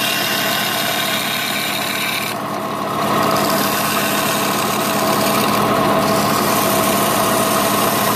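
Benchtop bandsaw running with a steady motor hum while a small piece of wood is fed into the blade; its sound shifts about two to three seconds in.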